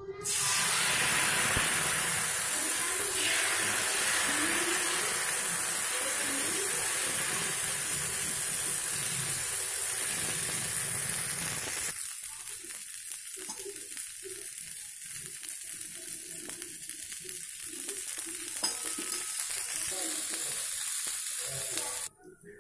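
Dosa batter sizzling loudly on a hot flat griddle (tawa) as it is spread and cooks. About twelve seconds in, the sizzle drops abruptly to a quieter, uneven crackle.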